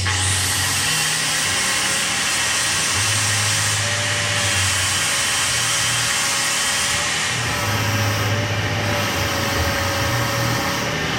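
Machinery running steadily: an even hiss with a thin wavering whine over it and a low hum that comes and goes.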